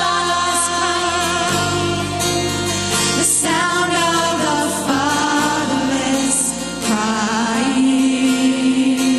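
A Christian worship song: a singer's voice wavering on held notes over sustained keyboard-like chords and a bass line that moves to a new note every second or two.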